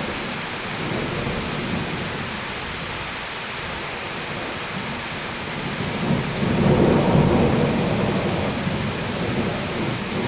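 Steady heavy rain hissing, with a low rumble of thunder that swells about six seconds in and fades away over the next few seconds.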